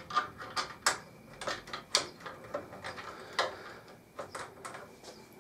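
Irregular small clicks and taps of case-fan mounting screws being lined up and started with a Phillips screwdriver in a plastic 120 mm fan frame on a PC case.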